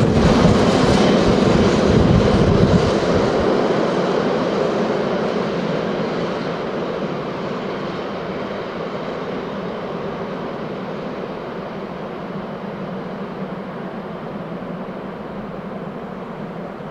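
A train passing on the tracks: loud wheel and rail rumble for the first few seconds, then fading steadily as it moves away, leaving a faint steady hum.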